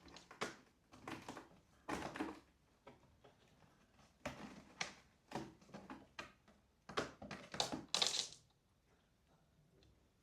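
Kittens playing with toys: irregular light knocks, scuffs and rustles, about a dozen over several seconds, the loudest a brief crinkly rustle near the end.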